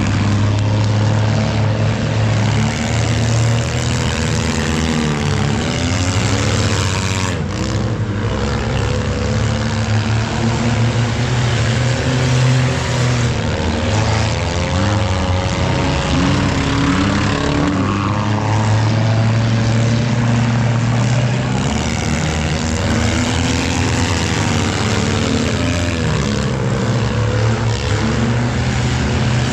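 Engines of several junk cars racing, revving up and down, their overlapping engine notes rising and falling.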